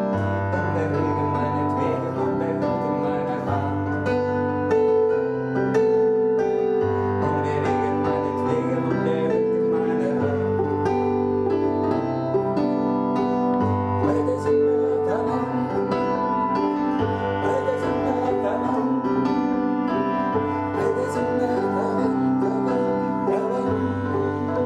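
Background music with piano over a slow, steady bass that changes note about every two seconds.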